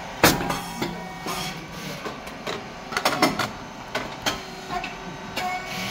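SYP8002 puffed rice cake machine running, with a string of sharp mechanical clacks and knocks over a steady machine hum.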